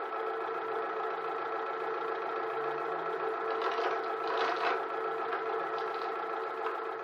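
Tractor engine running steadily, with a few short rattles of chain about four seconds in as a chain is hooked around the rear axle.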